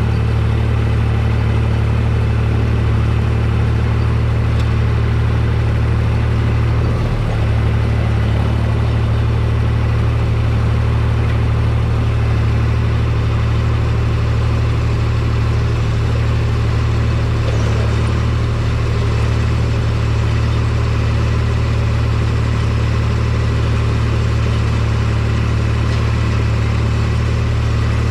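Tractor diesel engine running steadily under load, a deep even drone with a brief change in note about seven seconds in.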